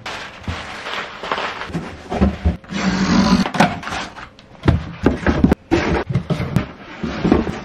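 Cardboard shipping boxes being handled and broken down: flaps bending and scraping, cardboard rustling, and irregular knocks as the boxes are moved and set down.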